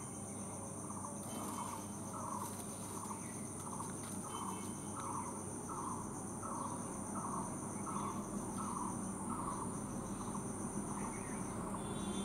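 A steady, high-pitched insect chorus, with a short falling note repeated about twice a second by an unseen animal that stops about nine seconds in.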